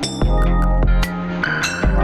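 Background music with deep bass notes and sharp percussive hits in a regular rhythm.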